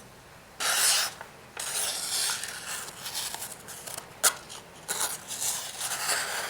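Rubbing and scraping as a folding hunting knife is handled and put away, with one sharp click about four seconds in.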